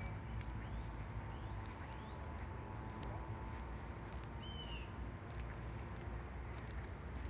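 Outdoor walking ambience: faint footsteps on a paved trail over a steady low rumble, with a few short bird chirps in the first couple of seconds and one more about halfway through.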